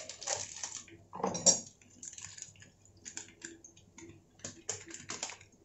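Foil spice packet crinkling as amchur powder is shaken out of it into a steel saucepan, over irregular crackling from onion pakoras frying in hot oil. The loudest crinkle comes about a second in.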